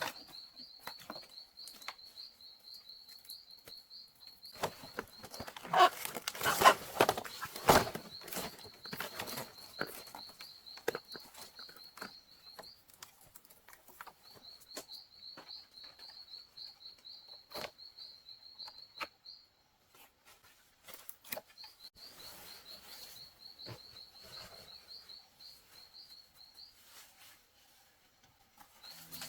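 A high chirping trill repeating in long bouts of several seconds, over scattered rustling and knocking. A louder burst of rustling and scraping comes about six to eight seconds in.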